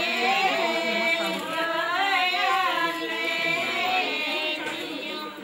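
Singing, with high, wavering voices that overlap, as in a group of women singing a devotional song.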